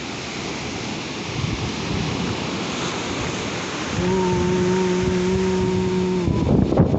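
Waves washing on the shore with wind buffeting the microphone. About four seconds in, a steady, unwavering low tone starts and holds for about two seconds, then cuts off as a louder gust of wind hits the microphone.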